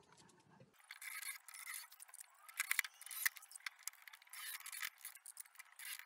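Wooden rafter scraping and knocking against the wooden roof frame as it is fitted by hand. There are several short scraping bursts with sharp knocks between them, the loudest knocks near the middle.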